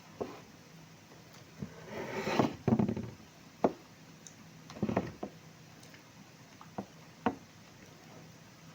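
Close-up eating sounds: scattered mouth smacks and clicks of chewing, with a louder, longer noisy stretch about two to three seconds in.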